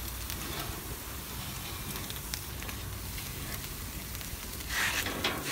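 Pizza rolls sizzling on a charcoal grill grate directly over hot mesquite charcoal: a steady hiss with fine crackles. A short, louder noise comes near the end.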